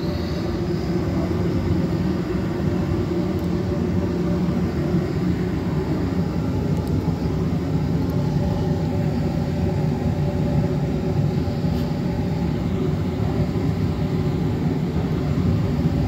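Coleman 90% gas furnace running with its blower motor on: a steady low hum and rush of air through the unit. It is the sign that the furnace has come through its start-up sequence after the inducer motor was replaced and is now heating.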